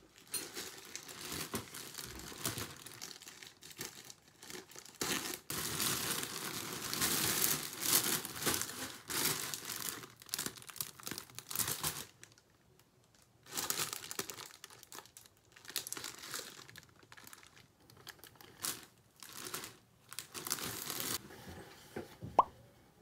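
Plastic packaging crinkling and tearing as clothes are unwrapped from a mailer and clear poly bags, in irregular rustles with a brief quiet spell about halfway through.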